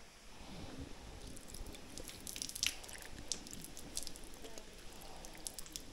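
Hands being rinsed with water: light, irregular splashing and dripping.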